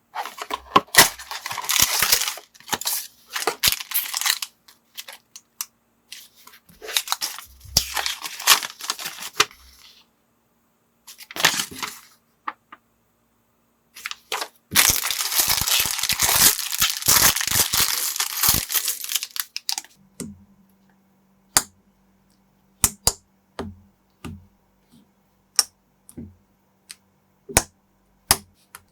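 Plastic packaging crinkling and rustling in several spells, as from parts bags being opened and handled. After that comes a run of sharp, separate clicks of plastic building bricks being pressed together.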